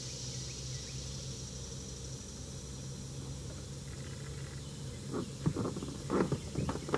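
Steady outdoor ambience of insects buzzing in a high band over a low, even hum, then a run of short knocks and rattles in the last couple of seconds.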